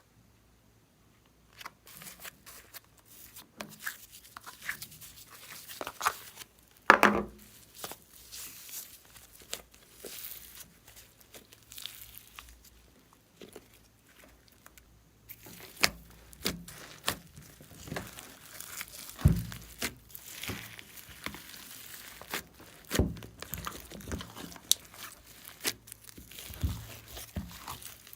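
Slime being squished and stretched by hand, giving many small sticky crackles and pops, with a louder squish about seven seconds in.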